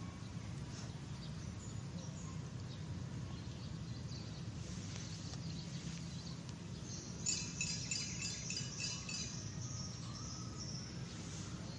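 Small birds chirping in quick repeated notes for a couple of seconds, starting about seven seconds in, over a steady low outdoor background hum.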